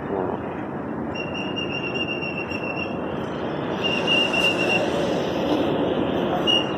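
Outdoor road-traffic noise: a steady rumble of passing vehicles, with a high, thin whine that comes and goes three times.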